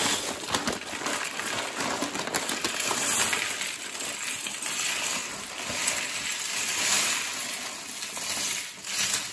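Hundreds of small plastic LEGO pieces sliding and clattering out of a tipped paper bag onto a tabletop and baseplate, a dense continuous rattle with the paper bag crinkling, dropping away sharply near the end.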